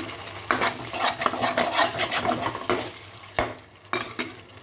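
A spatula stirring and scraping a thick spice paste around a frying pan, mixing in salt just added while the masala is fried down, then two sharp clacks against the pan near the end.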